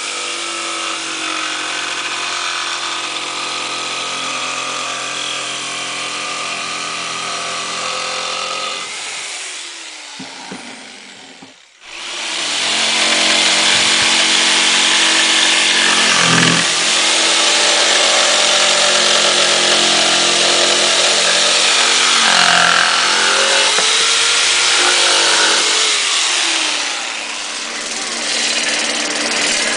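A Bosch PST 700 PE electric jigsaw runs and cuts through a wooden board. About ten seconds in it winds down and stops, then starts again and cuts on, its pitch dipping briefly now and then.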